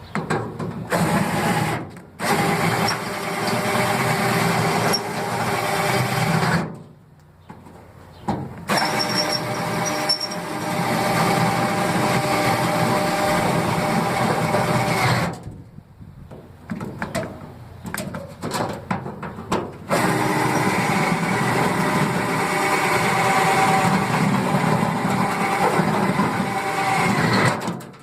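Cordless drill drilling out rivets in an aluminium diamond-plate truck tool box, running in long steady spells of motor whine. It breaks off about seven seconds in, and there is a stretch of short stop-start bursts around the middle.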